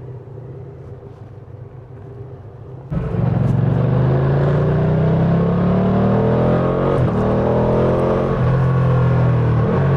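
Ducati Panigale V2's 955 cc twin-cylinder engine through its stock exhaust. It runs quietly and steadily at first, then turns much louder about three seconds in. The revs climb steadily after that, with a few brief dips in the second half.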